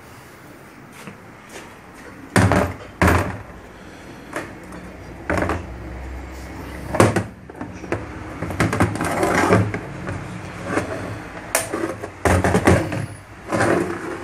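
Knocks and clatter of a removed diesel fuel pump's metal housing being handled and set down on a concrete floor: about ten sharp knocks at irregular intervals, several in quick clusters.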